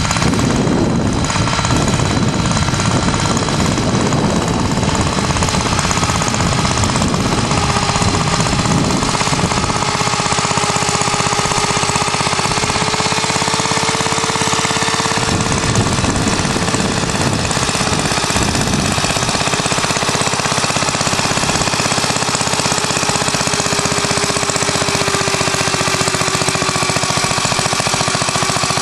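The JAP engine of a 1947 Clifford Mk1 two-wheeled walking tractor running steadily under load while it pulls a plough through the soil.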